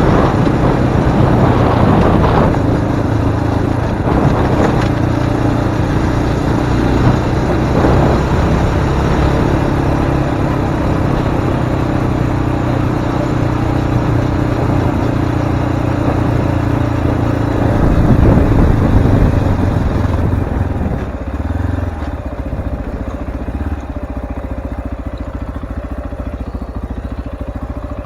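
RX3 Cyclone motorcycle running steadily while being ridden on a dirt track, the engine note mixed with a rushing noise. It swells for a moment past the middle, then is quieter toward the end.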